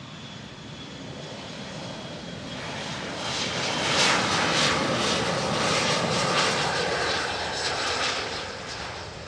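Boeing 737-500's CFM56-3 turbofan engines at takeoff power as the jet runs down the runway past the listener. The roar builds, stays loudest for several seconds in the middle with a rough crackle, then fades away near the end.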